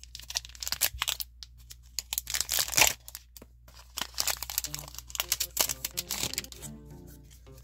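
Foil booster pack wrapper of a One Piece Card Game pack crinkling and tearing open, a run of crackles with the loudest rip about three seconds in, then more crinkling as the cards are slid out of the wrapper.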